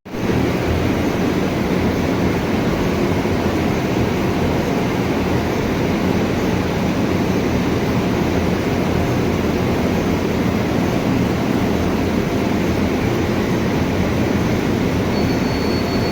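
Steady, loud mechanical running noise of a large machine, even and unbroken, with a faint thin high whine near the end.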